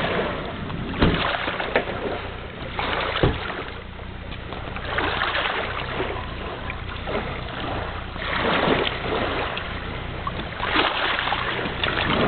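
Shallow lake water splashing and lapping around a toddler's feet as he wades at the shoreline, coming in rushes every two or three seconds, with a few sharp splashes.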